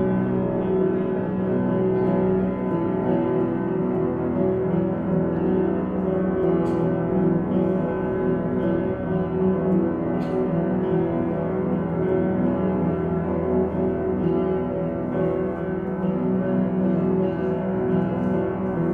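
Live piano music: a dense, sustained drone of many ringing tones held without a break, with two light clicks about a third and half way through.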